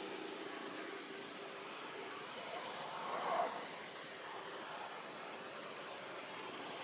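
Outdoor ambience: a steady distant drone with a thin, high-pitched insect whine running through it, and a brief louder sound a little past three seconds.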